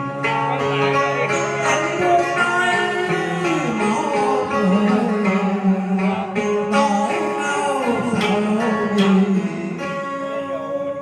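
Music of a Vietnamese tân cổ song: an instrumental passage with plucked strings carrying the melody over a steady accompaniment.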